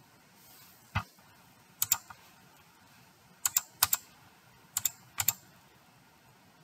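Computer mouse clicking: about six sharp clicks, most in quick doubles, spread over a few seconds.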